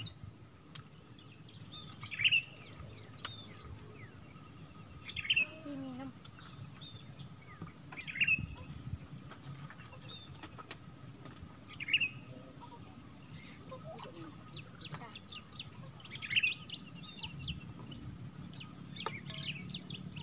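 Birds calling in a rural garden. One call rises clearly above the rest every three to four seconds, with fainter chirps between, over a steady high drone of insects.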